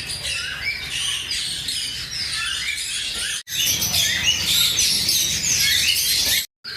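A flock of small parrots chirping and tweeting densely, many short overlapping calls at once. The sound breaks off for an instant about three and a half seconds in and again near the end.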